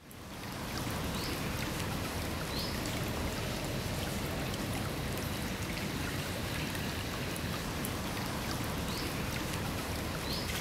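Water running in a shallow stream over gravel: a steady rushing that fades in over the first second, with a few faint high chirps.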